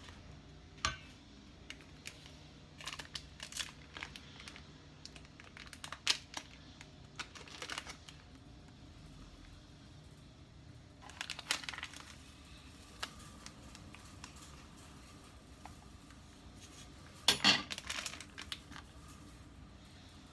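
Scattered light clicks, taps and crinkling of kitchen handling, coming in small clusters, with the loudest cluster about three-quarters of the way in.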